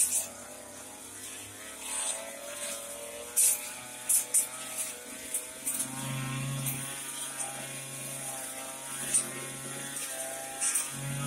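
Backpack two-stroke brush cutter running and cutting grass, its engine pitch wavering with the throttle and getting louder about six seconds in. Several sharp clicks stand out above it.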